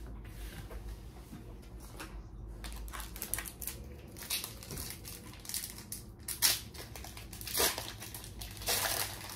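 Foil Pokémon booster pack wrapper crinkling as it is handled and torn open, a string of short crackles that gets louder in the last few seconds.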